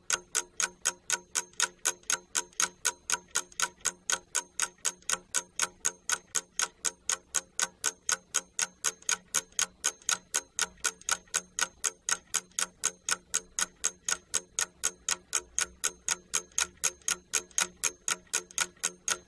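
Ticking-clock timer sound effect: steady, even ticks, about four a second, each with a short ringing tone, counting down the time given to complete an exercise.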